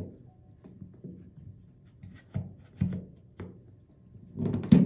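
Tool cart frame pieces being handled and fitted together: a few separate knocks and clunks, with a louder cluster of knocks near the end.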